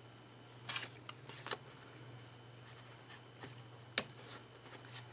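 Paper being handled by hand while decorating a planner page: a short rustling swish just under a second in, then scattered small clicks and taps, the sharpest about four seconds in.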